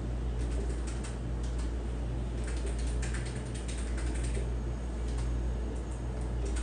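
Keys clicking on an ultrasound machine's console as measurements are entered, with a quick run of clicks in the middle, over a steady low electrical hum.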